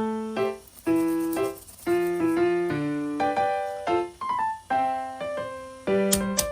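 Background piano music: a light melody of struck notes and chords, with a crisp percussion beat coming in near the end.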